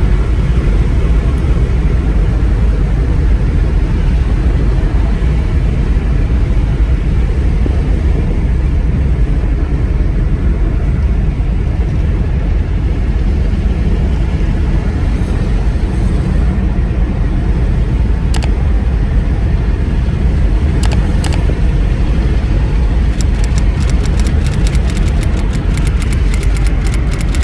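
Car on the move: a steady, loud low rumble of road and wind noise, with a run of quick faint clicks near the end.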